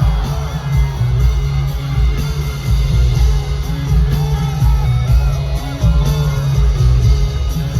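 Live pop concert music with a heavy, pulsing bass and a wavering melodic lead line over it.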